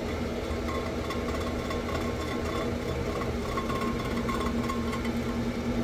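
A cylinder-head surfacing machine runs on automatic feed, its large rotary disc cutter spinning against the deck of an aluminum Toyota 22R cylinder head. It makes a steady mechanical hum with a constant low drone, and a fainter higher ring comes and goes.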